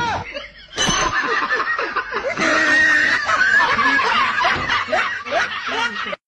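People laughing and giggling, starting about a second in and cutting off suddenly near the end.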